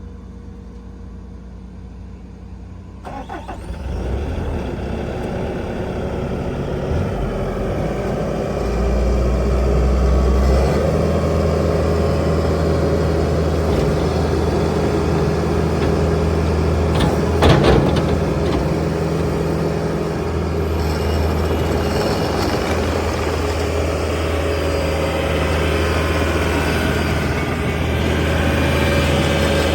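Bobcat T770 tracked skid steer's diesel engine starting about three seconds in, then running steadily, with engine speed rising around nine to ten seconds. A couple of sharp knocks sound about seventeen seconds in.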